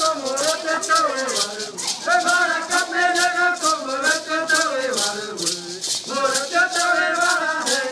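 Voices singing a chant to a steady beat of shaken maraca rattles, the rattle strokes coming several times a second.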